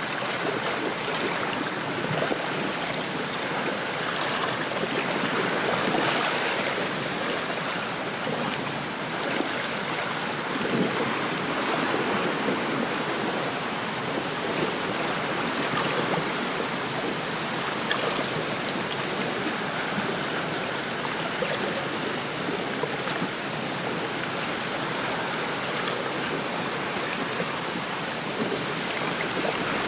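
Wind rustling through a lakeside reed bed, with small waves lapping at the shore, making a steady rushing hiss that swells a little now and then.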